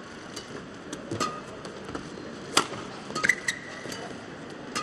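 Badminton rally: several sharp racket-on-shuttlecock hits, with short sneaker squeaks on the court mat, the longest about three seconds in.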